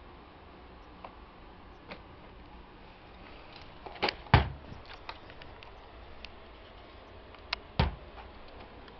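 Hard plastic toys knocking and clacking as a baby handles them: scattered light clicks, with two sharp knocks about four seconds in, the second the loudest, and two more near the end.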